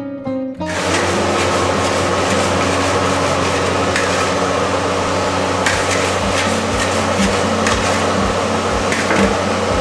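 A long-handled metal ladle scrapes and knocks against a large iron wok while palm-sugar (gula Melaka) syrup is stirred and poured, over a steadily running gas burner. The noise is dense and steady, with sharp clanks every second or so.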